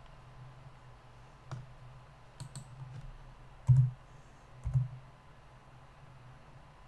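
Computer mouse and keyboard clicks while working in 3D software: a handful of separate clicks, the two loudest a little past the middle, over a faint steady hum.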